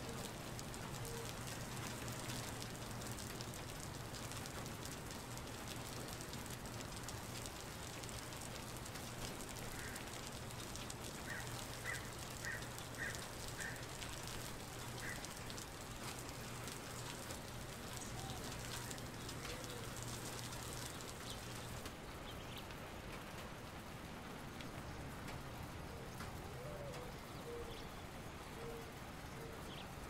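Steady rain falling on wet concrete, drops pattering and splashing into thin standing water. A bird chirps a quick run of five or six short high notes about halfway through, and a few short low bird calls come near the start and again near the end.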